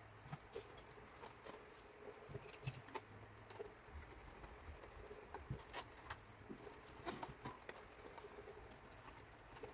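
Scattered light clicks and taps of a screwdriver and plastic parts as an electric fan's plastic motor housing is handled and unscrewed, with a pull on the oscillation knob near the end.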